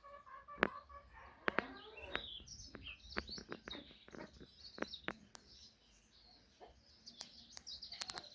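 Birds chirping, with scattered sharp clicks or knocks throughout and a quick run of them near the end.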